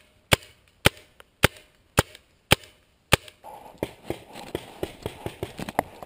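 Magfed paintball marker firing six single shots, evenly paced about two a second, each a sharp crack. A little after three seconds in the firing stops, and dry grass rustles with footsteps as the player moves through it.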